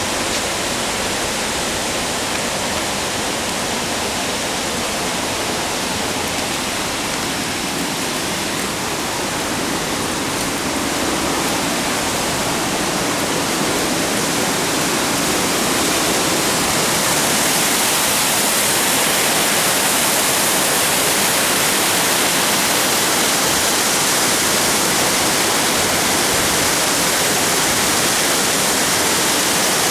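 Steady rushing of river water, a continuous even rush that grows somewhat louder and brighter about halfway through.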